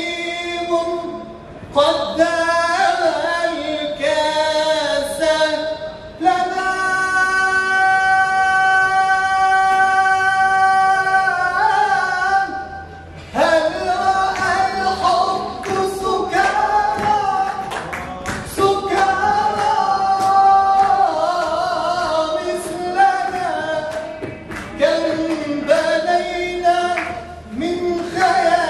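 A man singing solo into a handheld microphone, unaccompanied, in long phrases with short breath pauses; he holds one long steady note from about six to twelve seconds in.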